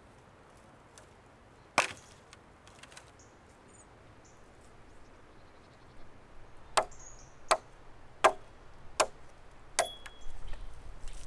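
Chopping blows on a wooden pole: one sharp blow about two seconds in, then five more in a steady rhythm in the second half, a little under a second apart. Rustling starts near the end.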